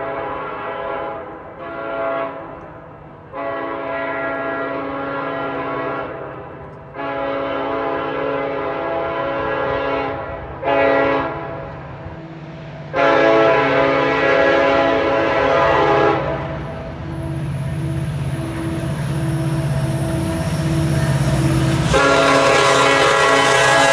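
Horn of CN 8007, an EMD SD70M-2 diesel locomotive, sounding a series of blasts, including a long, long, short, long sequence like a grade-crossing signal, as the train approaches. In the last several seconds the locomotive's diesel engine and the rumble of the train on the rails grow loud as it draws near.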